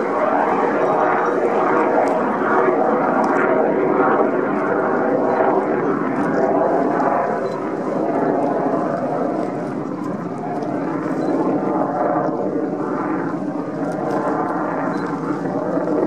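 Ship horns sounding in one long, continuous blast: several pitched tones overlap and waver slightly, and the sound swells and eases a little without stopping.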